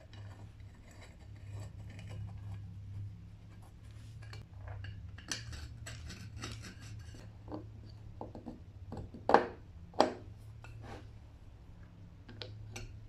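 Small metal clicks and scrapes from a screwdriver and loose parts as a cast-iron hand plane is put back together. Two sharp knocks come about nine and ten seconds in. A steady low hum runs underneath.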